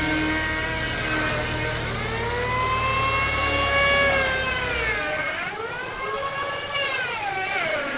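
A power tool's motor whining at a high pitch, its pitch sagging and recovering several times as it is loaded in the cut. A steady low hum under it stops about five seconds in.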